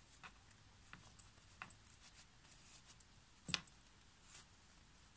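Faint rustling and soft scattered clicks of a small padded fabric piece being turned right side out by hand, with one sharper click about three and a half seconds in.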